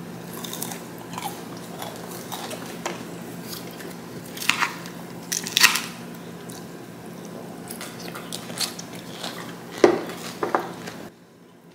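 Sounds of a meal at the table: a few sharp clinks and knocks of a spoon and ceramic bowls against plates, with crunching bites of food, over a low steady hum. The sound drops away abruptly near the end.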